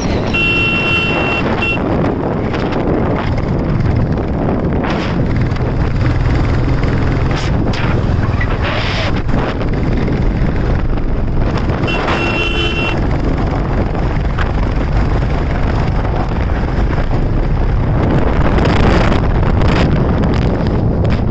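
Royal Enfield Classic 350's single-cylinder engine running on the road, with wind rushing over the microphone. A vehicle horn beeps briefly twice, once at the start and once about twelve seconds in.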